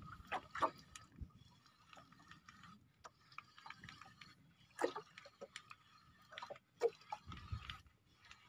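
Sea water lapping and sloshing against a small boat's hull, with a few scattered light knocks and clicks.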